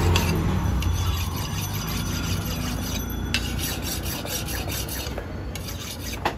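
Knife blade stroked back and forth on a sharpening stone: steel scraping on stone in repeated strokes, with a sharp click near the end.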